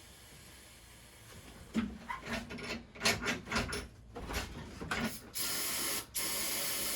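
Irregular mechanical clicking and rattling like a ratchet being worked, starting about two seconds in. It is followed by two stretches of steady hiss with a brief break between them.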